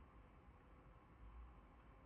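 Near silence: faint steady background noise with a low rumble.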